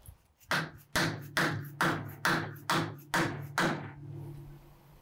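Dead blow hammer striking a wooden block held against a seized shaft in a jointer's cast-iron infeed table. It lands eight quick blows, about two a second, and a low ring hangs on after the last one. The hammering is driving out a rusted shaft that keeps the infeed table from moving.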